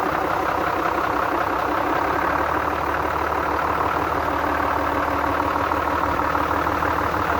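Engine idling steadily with a fast, even ticking clatter from the valve train, which the owner takes for a rocker arm knock.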